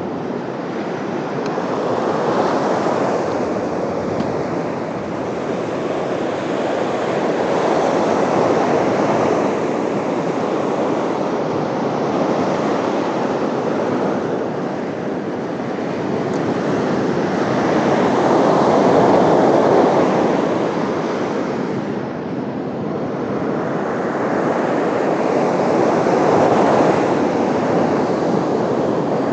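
Ocean surf: waves breaking and washing in, the noise swelling and easing every several seconds.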